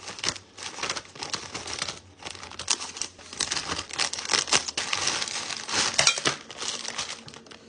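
Wrapped hard candies and their bag crinkling as the candies are handled and put into the bag: an irregular, continuous run of crackles and rustles.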